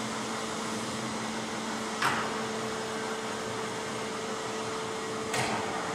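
Titan SC 22 vertical lathe running with its faceplate table turning: a steady motor and gearbox hum carrying two constant low tones. Two short louder noises come about two seconds and five and a half seconds in.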